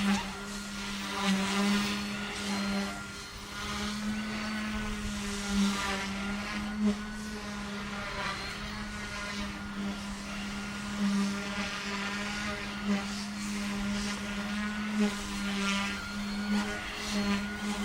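Omphobby M1 micro RC helicopter in flight: a steady rotor hum with a higher motor whine above it that glides up and down as it manoeuvres, swelling in loudness now and then.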